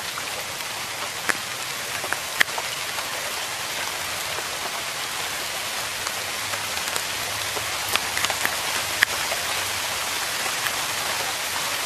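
Steady rain falling on swamp-forest foliage, an even hiss with scattered sharp drop ticks.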